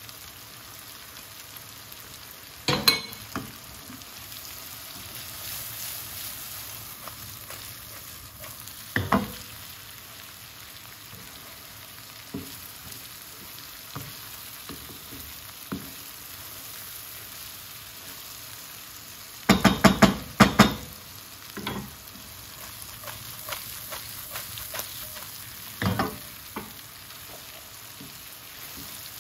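Okra, onions and peppers sizzling in a frying pan as a wooden spatula stirs them, knocking against the pan every few seconds. A quick run of several knocks about two-thirds of the way through is the loudest moment.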